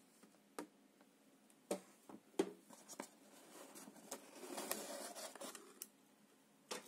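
Hands handling a cardboard box and its packing: a few sharp taps and knocks in the first three seconds, then a longer scraping, rustling stretch about four to five and a half seconds in, and one more tap near the end.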